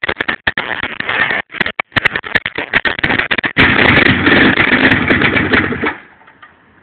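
YN27-series handheld two-stroke gasoline rock drill running as its bit drills into a stone block. The sound is uneven at first, then steady and loud for the last couple of seconds before it stops near the end.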